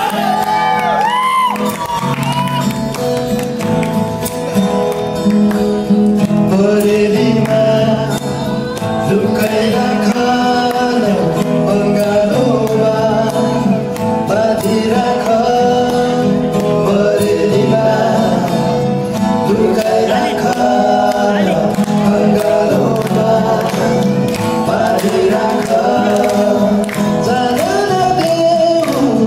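A recorded song with a singing voice and long held notes over a steady accompaniment, played over the hall's loudspeakers.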